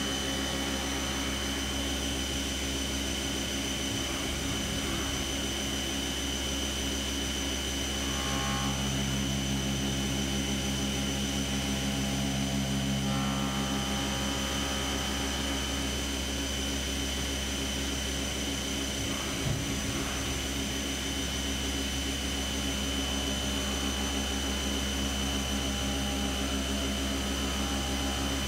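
Fadal CNC vertical mill milling a knurled aluminum motorcycle footpeg under flood coolant. Its spindle and cutter run with a steady high whine over the hiss of the coolant spray. The cutting tone shifts between about 8 and 13 seconds in, and there is a single short tick a little before 20 seconds.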